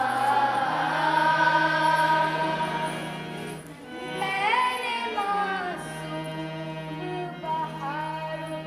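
A group of girls singing a qawwali together over a steady held drone, the voices sliding through melodic runs about midway.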